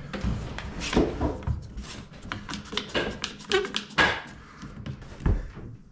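One-handed bar clamp being put on and squeezed tight against a wooden handrail: irregular clicks and knocks, with a quick run of clicks around the middle and a louder knock about four seconds in.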